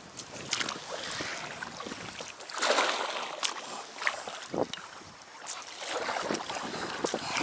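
Paddle strokes splashing in the water from an inflatable packraft, with water washing along the hull and short knocks of the paddle and gear on the raft. The loudest splash comes about two and a half seconds in.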